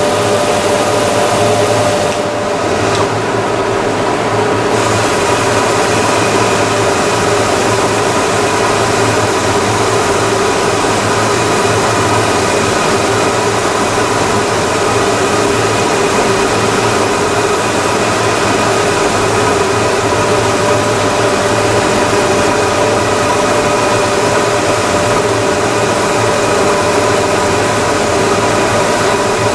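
Round-rod wood sanding machine running steadily as a curved wooden chair part is fed through it, making a constant machine whine over a loud hiss. A couple of seconds in, the highest hiss drops away for about two seconds.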